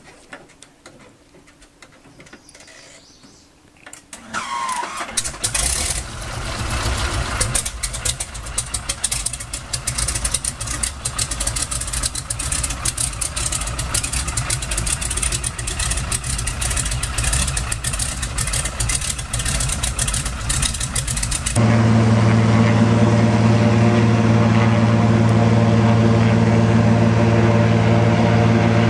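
A small plane's engine starts about four seconds in and runs unevenly at first. At about two-thirds of the way through it changes abruptly to a louder, very steady drone.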